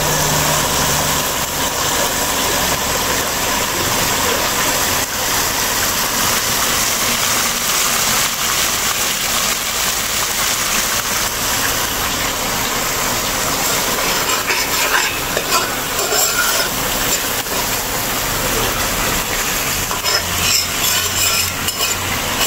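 Thick curry sauce frying and sizzling in an aluminium pot, a steady hiss. A spoon stirs and scrapes against the pot, with clusters of clicks in the second half.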